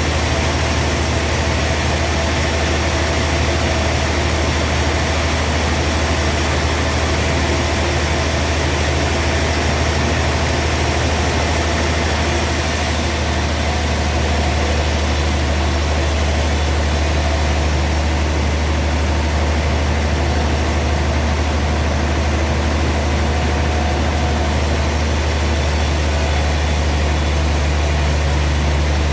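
Sawmill machinery running steadily with a continuous low drone.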